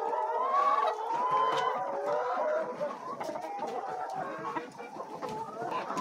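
A flock of laying hens clucking and calling, many birds at once in an overlapping chorus.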